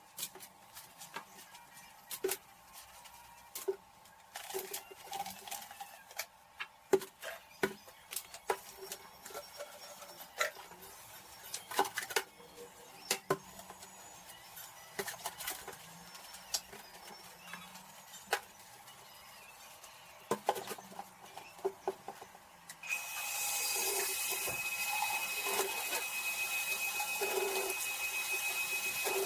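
Dishes and utensils clinking and knocking as they are handled during washing-up. About 23 seconds in, a steady rushing noise with a thin high whine starts and keeps going.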